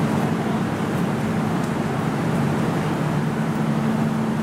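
Cabin running noise of an MTR Tung Chung Line K-train electric multiple unit travelling at a steady speed: an even rumble of wheels on rail with a constant low hum.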